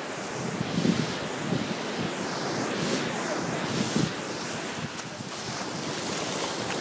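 Shallow surf washing around the feet with wind buffeting the microphone, and a few soft thumps in the first four seconds from bare feet wading through the shallow water.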